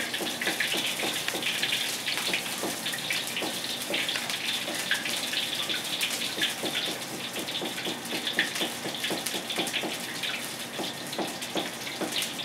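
Starch-coated pork pieces deep-frying in a wok of oil at about 180 °C: a steady, dense crackling sizzle as the pieces are dropped into the oil one by one.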